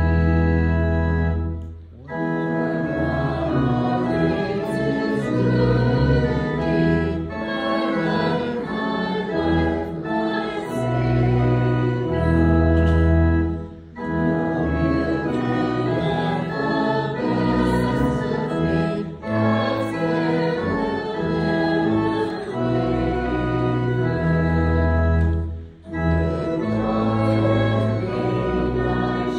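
Church organ playing a hymn with a congregation singing along, in sustained phrases with brief breaks between them about every five to seven seconds.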